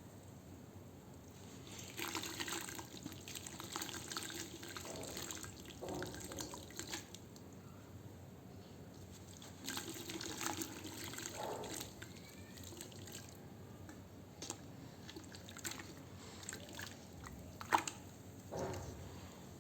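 Pure sand crumbling and breaking apart in water, with wet splashing, dripping and sharp crackles in several separate bouts.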